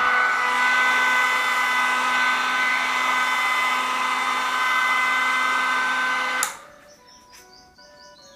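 Small drone motor spinning a propeller inside a 3D-printed bladeless fan, running at steady speed: a high whine over rushing air. About six and a half seconds in it cuts off suddenly, and faint music follows.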